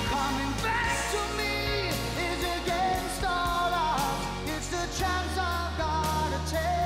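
Music: a song with a sung melody over sustained chords and a steady bass.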